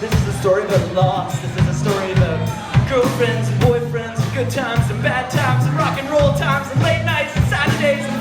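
Live rock band playing an upbeat tune: drums keep a steady beat under a repeating bass line, with a wavering lead melody on top.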